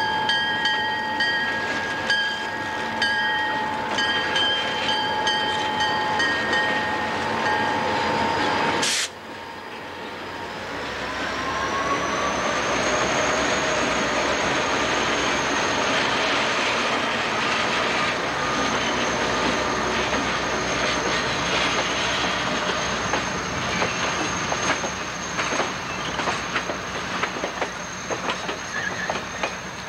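A diesel-hauled Algoma Central passenger train passing close by: steady wheel noise with rapid clacking over the rail joints and a high, steady wheel squeal. Before that, a chord of steady warning tones with short regular breaks cuts off abruptly about nine seconds in.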